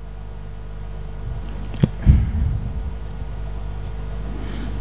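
Steady low hum of studio room tone, with one sharp click a little under two seconds in, followed by a soft low thump.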